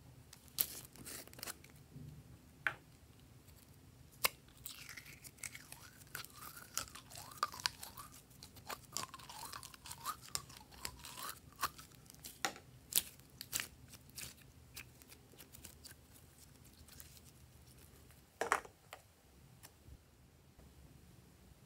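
Purple glitter slime being pulled out of a clear plastic jar and stretched onto more slime, with sticky clicks, crackles and wet squelching. The squelching is thickest in the middle, and one sharper cluster of pops comes near the end.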